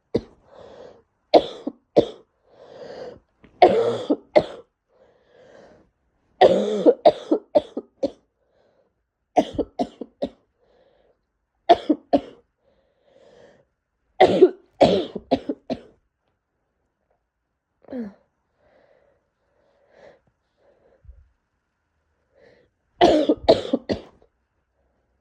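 A person with a congested head or chest cold coughing in repeated bouts of several quick coughs each, with short pauses between them. A longer lull comes in the second half, then a final bout near the end.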